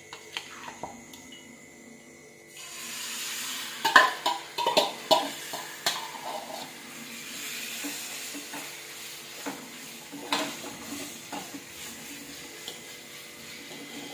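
Marinated chicken liver going into hot oil in a frying pan, with a sizzle that starts about two and a half seconds in and keeps going. A steel ladle knocks and scrapes the pan several times as the pieces are spread and stirred, loudest a few seconds after the sizzle begins.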